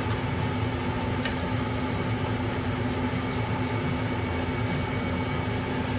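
Steady mechanical hum of a machine running, such as a kitchen fan, with a couple of faint light clicks.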